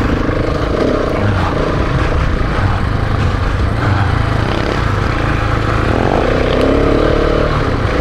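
Single-cylinder dual-sport motorcycle engine running steadily as the bike rides along a dirt road, with a constant rushing noise over it.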